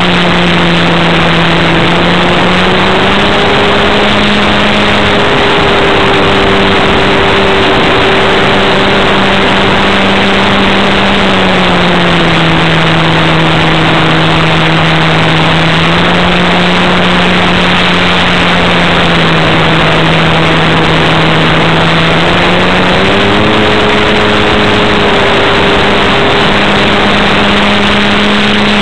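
Engine and propeller of a Super Sportster RC model airplane heard close up from on board, running at a steady high pitch under a loud rush of air. The note drops as the throttle is eased about twelve seconds in and climbs again about twenty-three seconds in.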